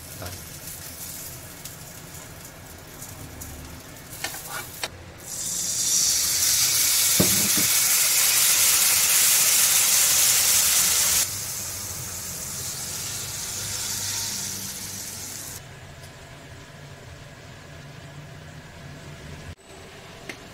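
Food sizzling as it cooks: a steady high hiss that swells sharply about five seconds in, stays loud for about six seconds, then dies down to a softer sizzle.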